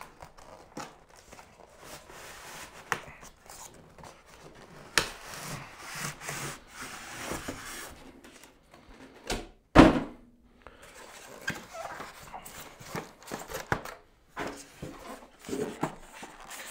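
Rubbing, scraping and small knocks of packaging being handled while a capsule coffee machine is unboxed, with one loud thump about ten seconds in.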